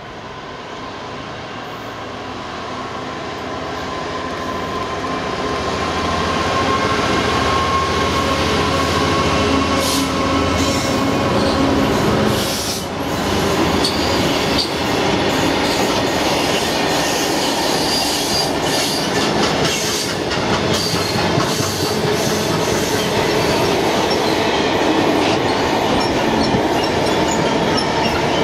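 Class 66 diesel-electric freight locomotive, its EMD two-stroke V12 engine growing louder as it approaches and passes in the first dozen seconds. After that, a long train of freight wagons rolls steadily by, with wheel squeal and the clicks of wheels over rail joints.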